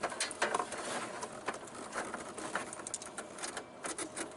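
Irregular clicks, taps and rattles of cables and connectors being handled and plugged back into the rear of a point-of-sale register.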